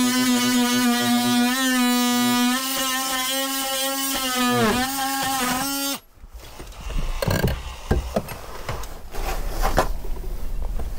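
Cordless oscillating multi-tool cutting through a wooden frame, a steady high whine whose pitch dips briefly under load and then recovers; it stops abruptly about six seconds in. Scattered knocks and handling noise follow as the tool and the cut-off piece are handled.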